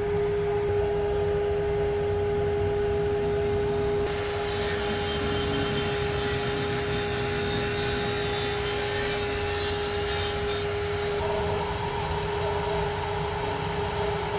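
Small table saw running with a steady whine while a dark wooden block is fed through its blade on a crosscut sled. The cut adds a loud, hissing rasp from about four seconds in to about eleven seconds in, then the saw runs on without load.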